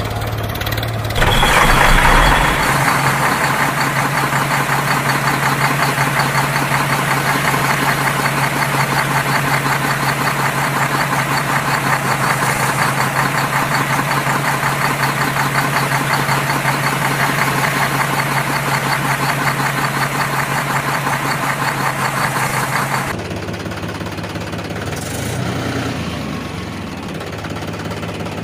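Engine running steadily with a rapid knocking beat; it gets louder about a second in and drops back near the end.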